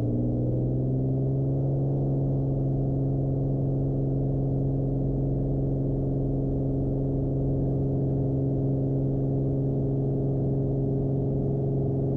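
Beechcraft Bonanza's six-cylinder piston engine and propeller at takeoff power during the takeoff roll: a steady, even drone that settles just as the power comes fully up. Heard through the cockpit intercom audio, which muffles everything above the engine's low tones.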